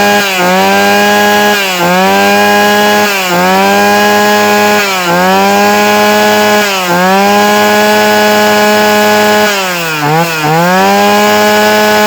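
Brush cutter engine running at high revs with a high, steady whine. The throttle is eased off for a moment every second or two, letting the pitch dip and climb straight back, with a quick double dip near the end.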